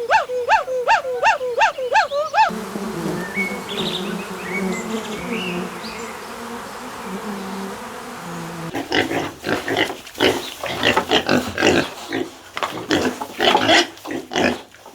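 A series of different animal sounds: a quick run of repeated rising-and-falling calls, then a steady low hum with a few high chirps, then rapid rough grunting from about nine seconds in.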